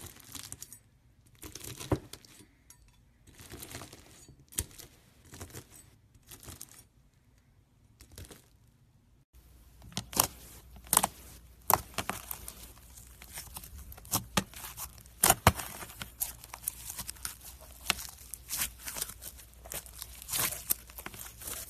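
Foam-bead slime (floam) being sliced with a blade, giving scattered crunchy crackling. About nine seconds in it changes to glossy slime being poked and squeezed by fingers, with a dense run of sharp sticky clicks and pops.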